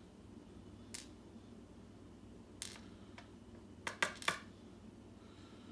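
Light metallic clicks and clinks of small lock parts being handled while a pin-tumbler cylinder is taken apart: a few single taps, then a quick cluster of three louder clinks about four seconds in.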